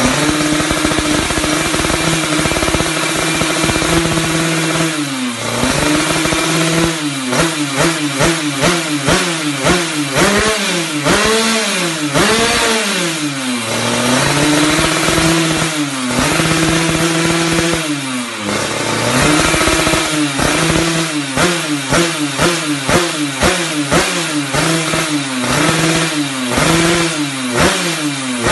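Road-race-tuned Yamaha F1ZR two-stroke single-cylinder underbone engine on a stand, held at a steady fast idle for the first few seconds, then revved over and over with throttle blips, the pitch rising and falling. Toward the end the blips come quick and short, one after another.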